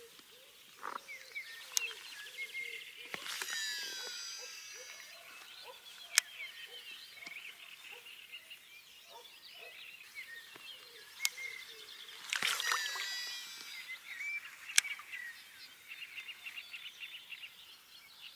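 Songbirds singing, with two louder bursts of rapid chirping trills, over a faint run of short low calls. A few sharp clicks stand out.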